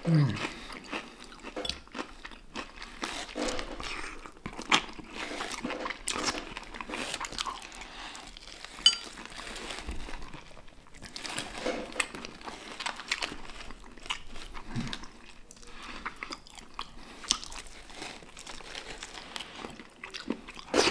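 A person eating crispy fried chicken close to the microphone: repeated crunching bites and chewing, heard as many short, irregular clicks.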